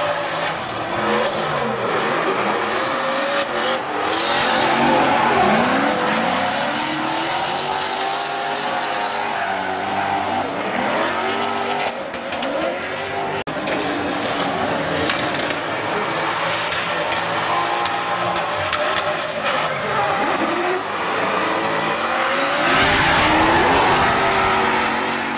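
Drift cars' engines revving up and down hard through slides, with tyres squealing as they spin and smoke. Near the end a louder rush of tyre noise comes as a car slides close by.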